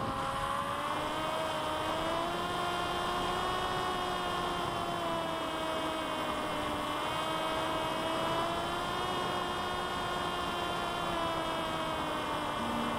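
Electric motor and propeller of a C1 Chaser FPV flying wing in flight, picked up by its onboard camera: a steady whine that drifts slightly up and down in pitch with the throttle, over a constant rush of noise.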